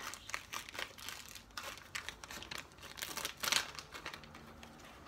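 A bag crinkling in irregular bursts of handling noise as a hair bundle is stuffed back into it.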